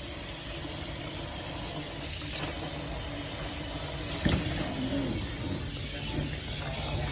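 Water running steadily into a large dog water bowl as it is filled, with one sharp knock about four seconds in.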